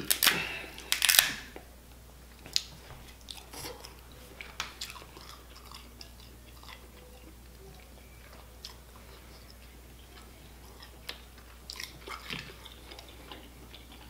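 Crab shell cracked and picked apart by hand close to the microphone: a burst of sharp cracks and snaps in the first second and a half, then scattered small clicks as meat is pulled out, with another cluster of cracks near the end.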